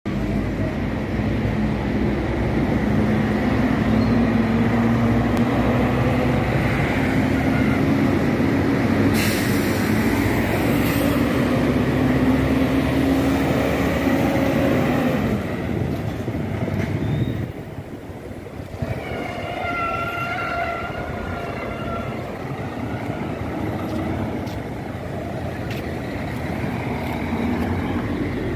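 Intercity coach's diesel engine running as the bus pulls away and drives past, with a short burst of hiss about nine seconds in; the engine sound drops away a little after halfway, leaving quieter street traffic.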